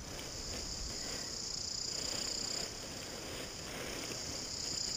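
Steady high-pitched insect chorus, crickets by its sound, easing off for about a second in the middle and then rising again. Faint rustling of paraglider lines and fabric being handled lies underneath.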